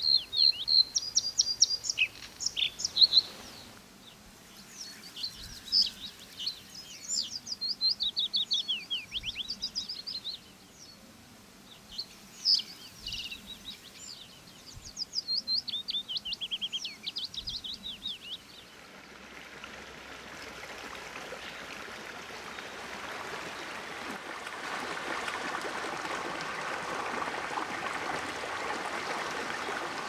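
White-spotted bluethroat singing in bursts of rapid, varied phrases with short pauses between them. About two-thirds of the way in the song stops, and a steady rush of stream water spilling over a small weir builds up and runs on.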